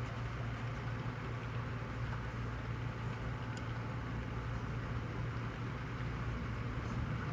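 Thunderstorm rain falling steadily, an even hiss over a constant low hum.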